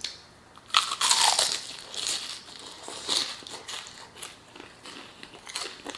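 Biting into and chewing crispy-skinned fried chicken close to the microphone: one loud crunch about a second in, then softer crunches as it is chewed.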